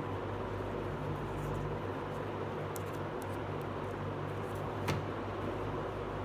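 Steady low hum and hiss of background noise, with faint small clicks and one sharper tap about five seconds in from hands handling a plastic doll and its dress.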